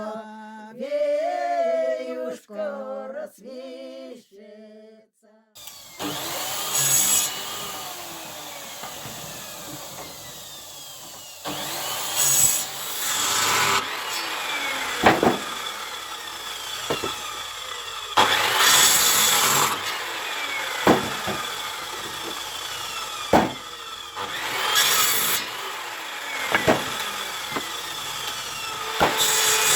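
An a cappella Russian folk song ends about five seconds in. Firewood is then being sawn: rasping bursts every few seconds, with sharp knocks between them.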